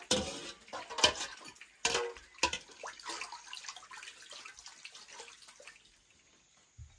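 A metal spoon knocking and scraping in a metal pot of churned yogurt, about four sharp clinks in the first two and a half seconds, with liquid splashing and dripping that trails off.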